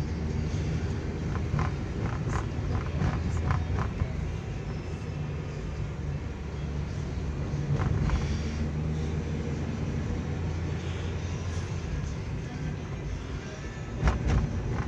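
Steady engine hum and road rumble inside a moving taxi's cabin, with a run of short clicks in the first few seconds and a louder knock near the end.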